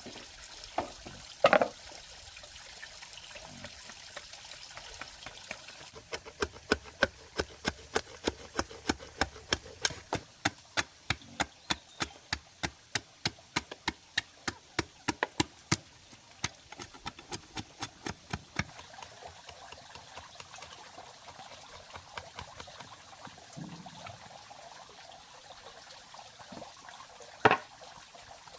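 A faint steady trickle of water, with a run of quick, evenly spaced sharp knocks, about three a second, starting about six seconds in and lasting some twelve seconds. A single louder knock comes near the start and another near the end.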